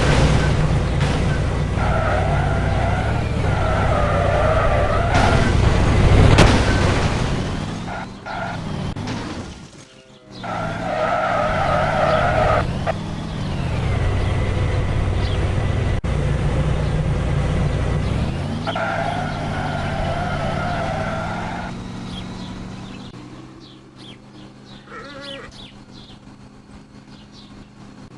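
Vehicle engine sound, its pitch rising and falling, with a warbling tone that comes and goes several times. It fades out near the end.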